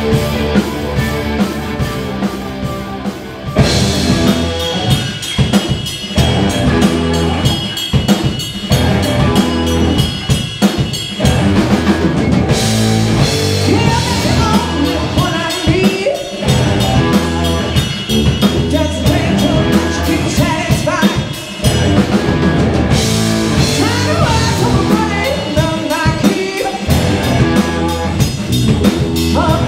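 Rock band playing live: a woman sings lead over electric guitars, bass guitar and drum kit with a steady beat. The band gets louder about three and a half seconds in.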